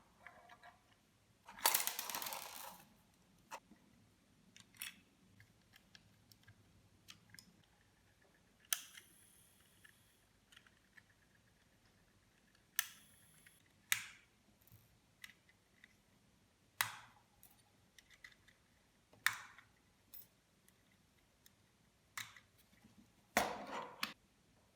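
Sharp clicks and knocks from handling and adjusting the opened IKEA DEKAD mechanical alarm clock by hand, scattered a few seconds apart, with a short scraping rustle about two seconds in.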